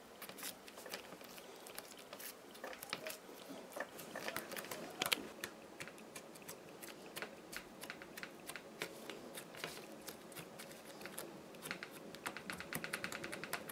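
Faint, irregular crackling and clicking as fingertips poke and knead soft, airy white squishy filling dough, with one slightly louder crackle about five seconds in.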